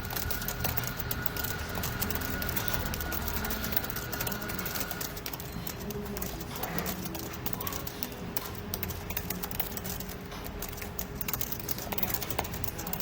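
Mechanical keyboard typed on at speed, a rapid run of key clacks during a typing test of about 117 words per minute.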